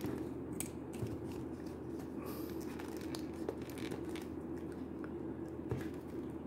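Faint clicks and rubbing of plastic as a Jada Toys M. Bison action figure is handled and a swappable hand is pressed onto its wrist. A steady low hum runs underneath.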